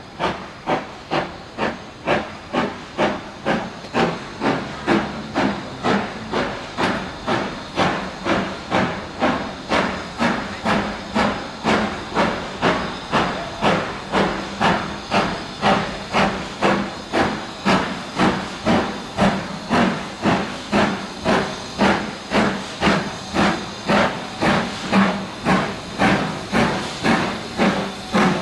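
BR Standard Class 4 two-cylinder steam locomotive working a train, its exhaust chuffing in an even rhythm of about two beats a second at a steady pace.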